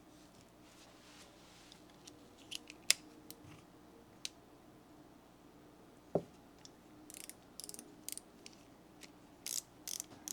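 Small steel Wera tool parts handled and fitted together: scattered light clicks and taps, with a sharp click about three seconds in, a duller knock about six seconds in, and quick runs of clicks near the end.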